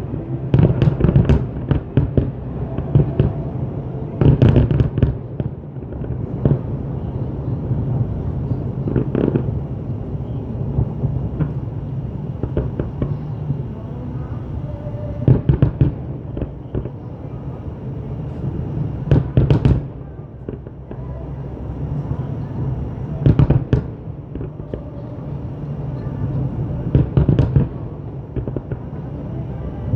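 Aerial fireworks display: clusters of shells bursting with sharp bangs and crackles every few seconds, over a steady background din with voices.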